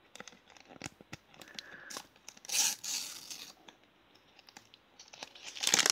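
Paper sticker packet being torn open and its wrapper crinkled between the fingers: scattered small crackles, a longer tearing rasp about two and a half seconds in, and a louder one near the end.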